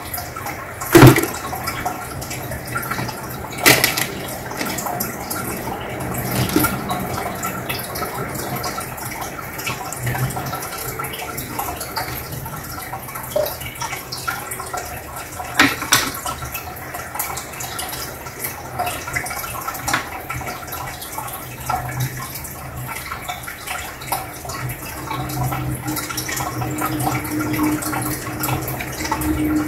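Aquarium sponge filter bubbling: air bubbles rising and breaking at the water surface, a steady gurgling with a low hum underneath. Sharper pops or splashes come about a second in, near four seconds and around sixteen seconds.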